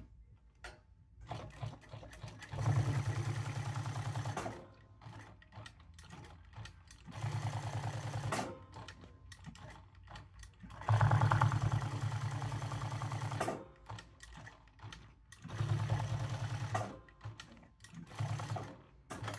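Jack S5 sewing machine stitching a leather patch onto a cap, in five short runs of fast, even needle rattle. It stops briefly between runs while the cap is turned, with small clicks in the pauses.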